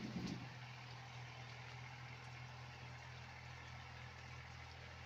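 Steady low hum of an engine running at an even pace.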